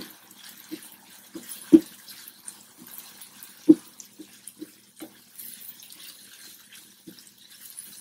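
Wooden spatula stirring yard-long beans in a frying pan on medium heat: irregular scrapes and taps against the pan, with louder knocks at the start, at about two seconds and near four seconds, over a faint sizzle.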